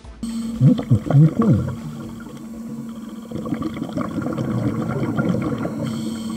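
Underwater sound picked up by a diver's camera: scuba exhaust bubbles gurgling, loudest in a surge of bubbling about half a second to a second and a half in, then a softer steady bubbling wash over a constant low hum.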